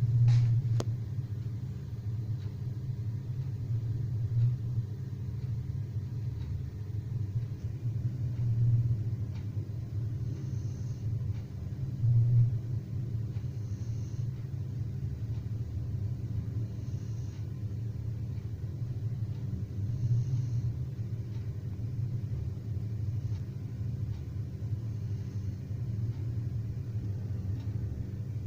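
Sleepers snoring: low rumbling snores that swell and fade every few seconds over a steady low drone, with faint higher breathing sounds coming and going in the second half.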